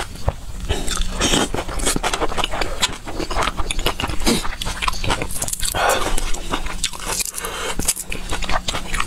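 Close-miked chewing of spicy shrimp with the mouth closed: wet smacking and many small mouth clicks, with a few louder, longer chews around the middle.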